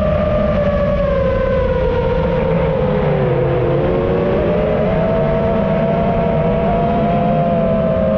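Small FPV quadcopter's motors and propellers whining. The pitch sinks about three seconds in and climbs back a second later as the throttle changes, with the motors' tones running slightly apart.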